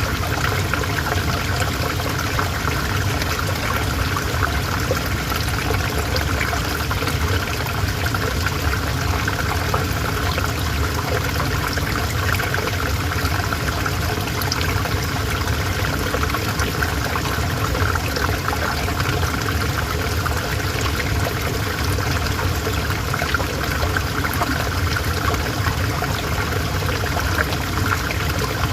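River water flowing in a steady, even rush with no pauses.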